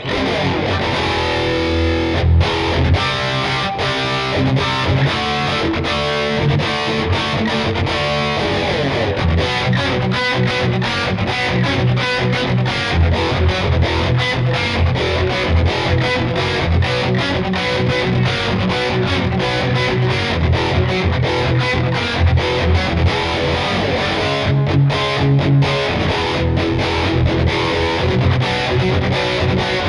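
Lavish CMRL-W electric guitar with Tesla pickups played with a distorted tone: fast picked riffs and chords, a continuous stream of short, sharply attacked notes with a heavy low end.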